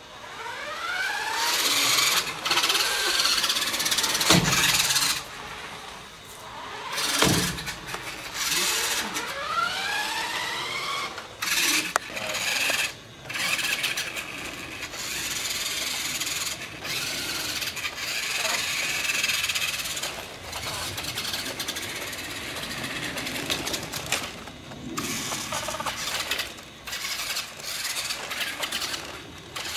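Radio-controlled toy monster trucks' motors whining in repeated bursts, the pitch rising each time they speed up and cutting off when the throttle is released. There are two sharp thumps, about four and seven seconds in.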